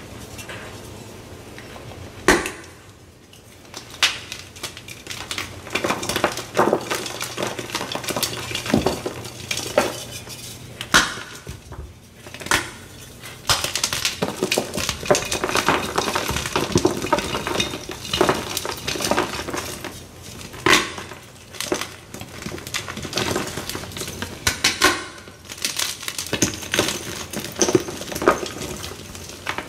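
Blocks of Z Athletic gym chalk crushed and crumbled by hand: a dense, crunchy crackling, broken every few seconds by sharp snaps as pieces break off.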